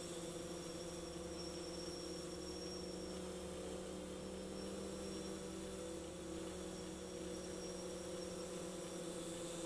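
DJI Phantom 3 Standard quadcopter hovering: a steady propeller buzz made of several held tones, its pitch wavering slightly about halfway through as the drone holds position.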